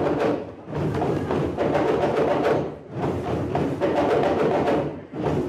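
Djembe hand drumming played live: fast, dense strokes in repeated phrases, with a brief break roughly every two and a half seconds.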